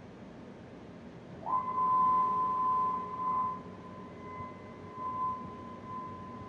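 Avid CNC PRO4896 router's gantry jogging across the table, its stepper motors giving a steady high whine. The whine starts about a second and a half in with a quick rise in pitch as the gantry speeds up, then holds one pitch while the gantry travels, swelling and dipping in loudness.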